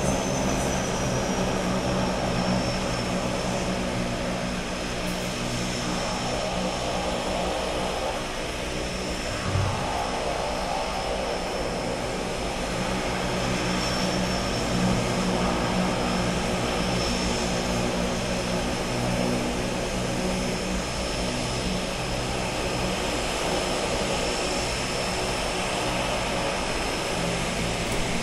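Seaplane turboprop engines running: a steady propeller drone with a high turbine whine that dips slightly in pitch at the start and then holds steady.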